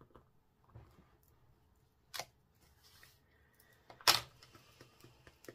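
Two sharp clicks over faint paper rustling, one about two seconds in and a louder one about four seconds in: a clear acrylic stamping block being handled and lifted off the card stock.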